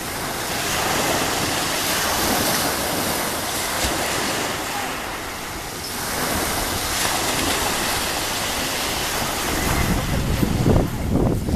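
Black Sea waves washing onto the shore, swelling and easing twice. Near the end, wind buffets the microphone with gusty rumbling.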